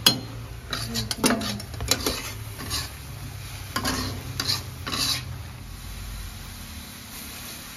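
A spatula stirring and scraping through a pan of frying spice paste with corn, a sharp clink at the start, then a run of scrapes and knocks against the pan over a light sizzle, easing off after about five seconds.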